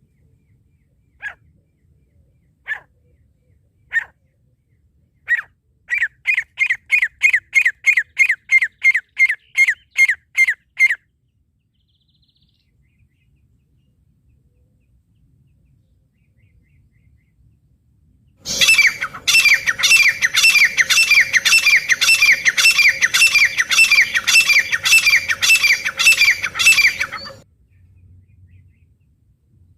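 Francolin (teetar) calls. A few single sharp notes about a second and a half apart, then a fast run of repeated notes for about five seconds. After a pause of several seconds, a second, louder run of repeated calls with a steady hum beneath lasts about nine seconds and cuts off suddenly.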